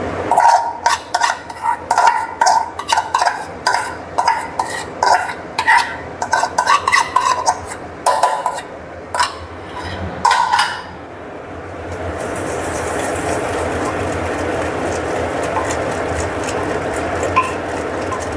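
A metal spoon scraping and knocking against a steel bowl and the rim of a pressure cooker, a rapid run of ringing clinks, for the first ten seconds or so. About twelve seconds in it gives way to a steady sizzling hiss as the mutton is stirred in the hot pressure cooker.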